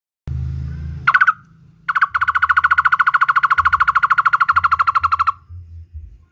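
Barbet calling: a single short note about a second in, then a fast, even trill of repeated notes at one pitch lasting about three seconds that stops abruptly. A faint low hum runs underneath.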